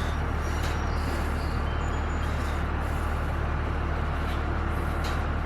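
A steady low mechanical hum with an even rumbling noise over it, like a motor or engine running, holding level with no change.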